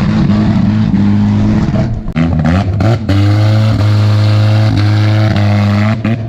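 Honda Civic four-cylinder engine with a rod knock, run hard at high rpm. Its pitch dips and climbs again about two to three seconds in, holds steady, then falls away near the end.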